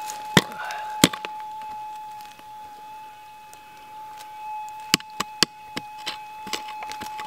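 A prospecting pick chopping into hard, dry soil: two sharp blows in the first second, then a run of lighter strikes and scrapes from about five seconds in. A steady high tone sounds underneath, the metal detector's threshold hum.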